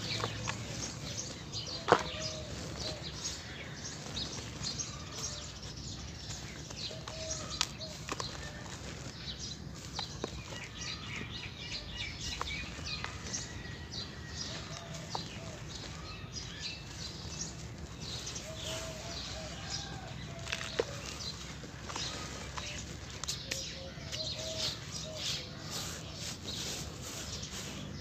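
Soft cement crumbling and being crushed by hand, a steady run of small crackles with one sharp snap about two seconds in. Birds call in the background.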